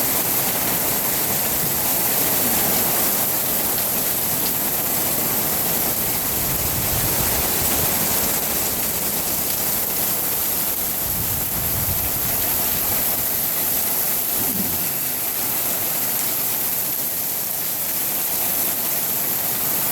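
Heavy rain pouring down in a steady, dense downpour.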